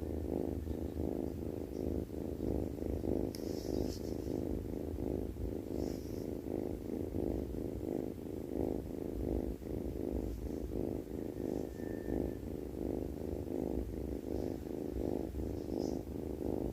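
Sleeping cat snoring: a steady, rhythmic low rumble pulsing about three times a second.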